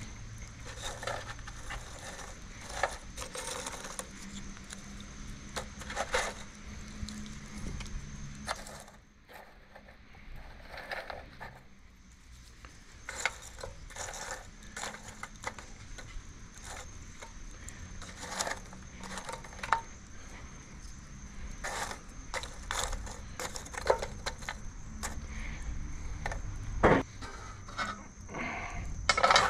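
Lumps of burning charcoal being poked and shifted in a metal grill firebox, giving irregular clinks, knocks and scrapes of charcoal against charcoal and the metal pan. Near the end come a couple of louder clanks as the metal grill grate is handled.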